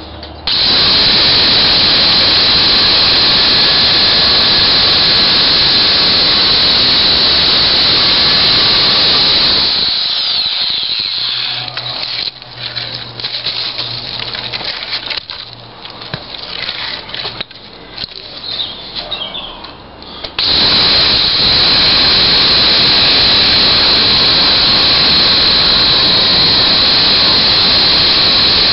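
Titan electric pole chainsaw running at full speed and cutting through a log for about ten seconds, then stopping. A quieter stretch of knocks and handling noises follows, and about two-thirds in the saw starts again and cuts on to the end.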